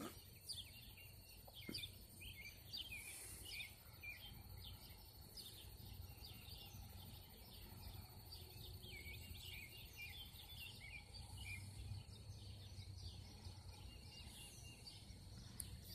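Faint songbirds chirping, many short quick calls overlapping, over a steady low hum.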